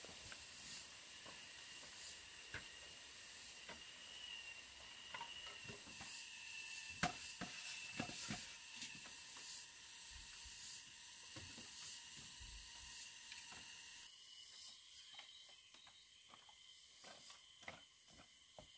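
Steady high buzzing of forest insects, with scattered light knocks and clatter of bamboo being handled, most of them in the middle and near the end.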